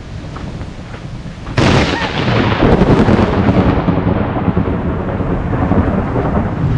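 A massive, close thunderclap breaks suddenly about a second and a half in and rolls on as a long, heavy rumble.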